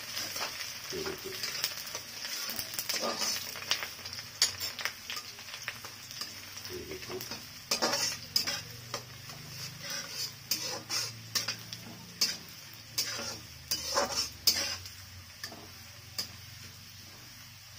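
Chopped garlic and whole spices sizzling in hot mustard oil in a metal kadhai, stirred with a metal spatula that scrapes and clicks irregularly against the pan. The stirring stops shortly before the end, leaving only the sizzle.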